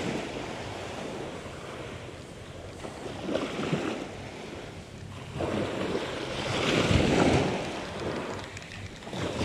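Small sea waves washing onto a beach, swelling three times: briefly a little past three seconds in, longer and louder around seven seconds, and again at the end. Wind buffets the microphone throughout.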